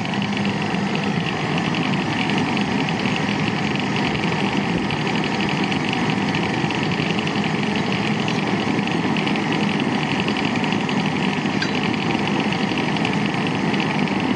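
Small burner firing a homemade aluminum-melting furnace, running steadily as the furnace heats up.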